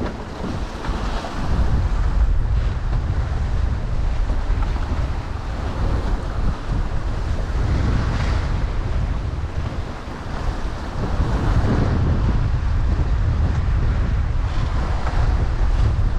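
Strong wind buffeting the microphone with a heavy low rumble, over the rush of water and waves along a sailing yacht's hull, the water sound swelling and fading every few seconds.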